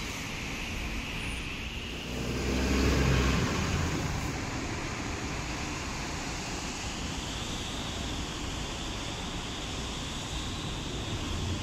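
City bus diesel engine running as the bus pulls away and turns out, a low rumble that swells for a couple of seconds near the start, over steady traffic noise.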